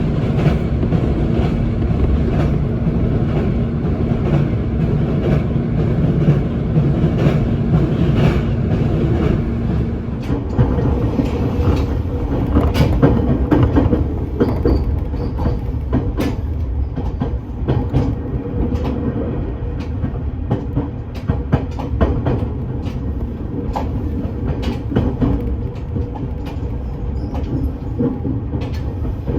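Train running along the platform: a steady rumble of wheels on rails with irregular clicks as they cross rail joints. A steady hum gives way to a higher one about ten seconds in.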